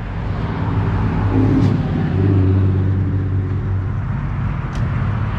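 A vehicle engine idling: a steady low hum that grows a little louder about two seconds in.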